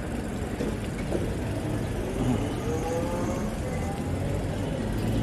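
Steady city street traffic noise, with a faint rising hum about two seconds in.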